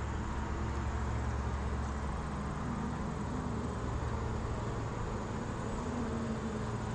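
Honeybees buzzing around an open hive, a steady wavering hum, with a low rumble underneath that fades out about halfway through.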